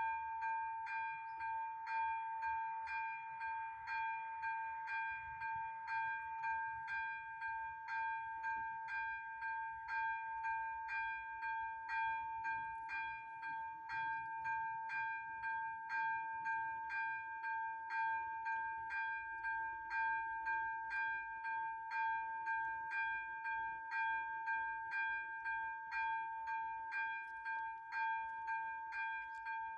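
AŽD ZV-02 electronic level-crossing bell ringing steadily at about two strokes a second, each stroke leaving a sustained chime-like tone: the crossing's warning for an approaching train.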